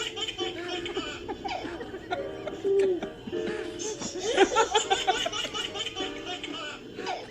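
Laughter over background music.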